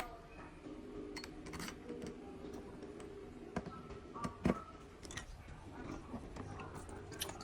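Scattered light clicks and taps of small hard objects being handled, the loudest about four and a half seconds in, over a faint steady hum.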